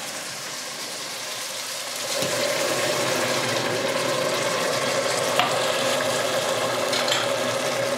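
Ribs and vegetables sizzling in a stainless steel stew pot on a ceramic hob. About two seconds in, white wine is poured into the hot pot and the sizzling grows louder and stays so as the wine starts to cook off.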